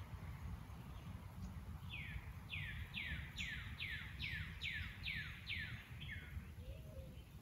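A songbird calling a quick series of about ten sharply falling notes, about two a second, starting about two seconds in, over a steady low background rumble.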